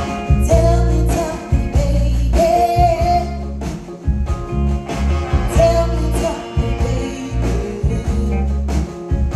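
A band playing with a singer: a sung melody over guitar, a heavy bass line and steady drum beats.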